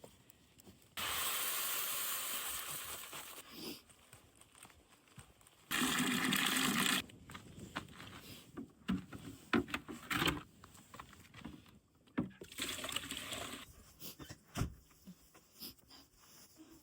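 Something poured into a container in three bursts of steady rushing hiss that start and stop abruptly, the first about two and a half seconds long and two shorter ones later. Small knocks and rustles come between the bursts.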